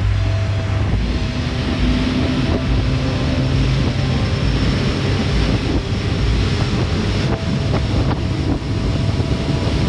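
Mercury outboard motor running steadily as a small open boat cruises on the river, with a steady rush of wind and water over it.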